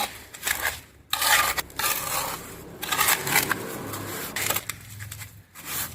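Cement being put into a bucket on top of packed soil: a run of gritty scraping and crunching, coming in several rough bursts.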